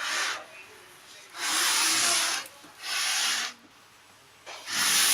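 Repeated bursts of rustling, rubbing noise, each about a second long, separated by short quiet gaps.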